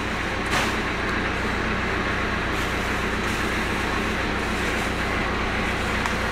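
Engine of a small garbage-collection utility cart idling steadily, with a thump about half a second in as a rubbish bag lands in its bed.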